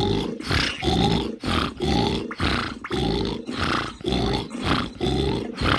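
A person snoring loudly, rough rasping snore breaths in and out at a quick, even pace of about two a second.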